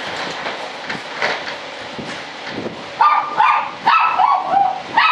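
A dog barking: several short, high barks in quick succession over the last two seconds, over a steady hiss.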